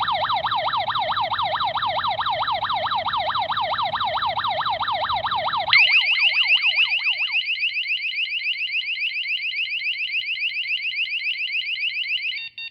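Electronic alarm siren sounding in rapid up-and-down sweeps, about four a second. About six seconds in it switches to a higher, faster sweeping tone, then cuts off abruptly near the end.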